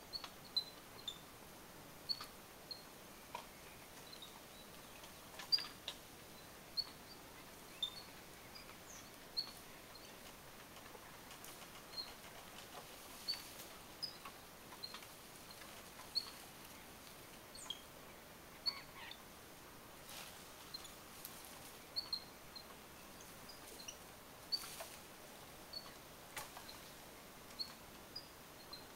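Short high-pitched animal chirps, one every second or so, with a few soft clicks in between.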